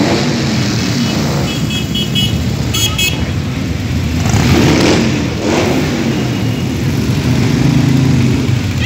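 Several cruiser motorcycles riding past slowly, one after another, their engines running at low revs and swelling as each bike passes close. A few short, high-pitched toots come about two to three seconds in.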